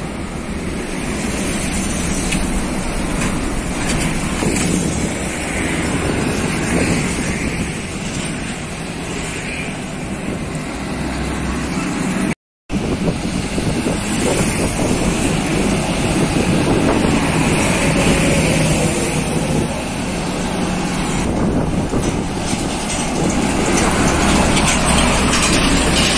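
Road traffic passing close by: diesel container trucks, cars and motorcycles going past with engine and tyre noise. The sound cuts out for a moment about halfway through.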